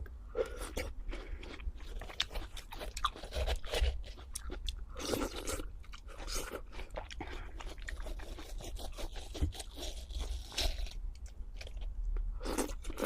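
Close-miked crunching and chewing of crisp food, with dense irregular crackles and bites.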